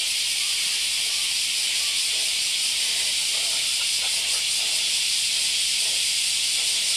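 Chorus of cicadas buzzing steadily, a high-pitched wash that doesn't let up.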